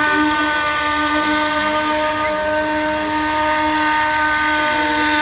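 Steam whistle held in one long, steady blast: a chord of several tones over the hiss of escaping steam.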